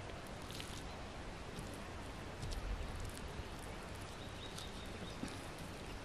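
Quiet outdoor ambience: a steady low rumble under an even hiss, with a few faint clicks and a brief faint high chirp about two-thirds of the way through.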